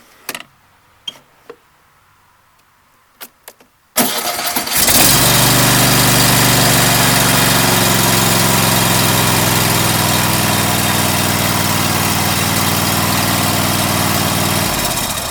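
A few light clicks, then a Cub Cadet's Kohler 7000 series V-twin engine cranks briefly and fires about four seconds in. It then runs steadily. The new starter is engaging the flywheel and the engine starts straight away.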